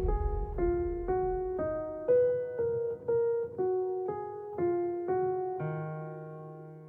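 Background music: an electric piano plays a short melody of single notes, about two a second, then ends on a held chord that fades out.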